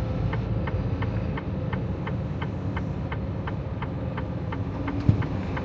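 Turn-signal indicator ticking evenly, about three ticks a second, over the steady low rumble of the Freightliner Cascadia's diesel engine heard inside the cab.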